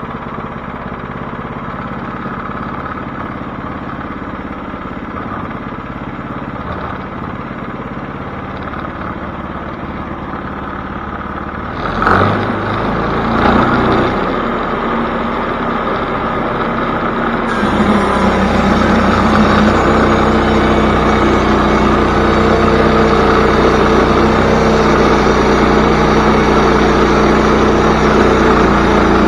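Portable band sawmill's engine running steadily, with a sudden knock about twelve seconds in, then a louder, steadier run with a held hum from about eighteen seconds.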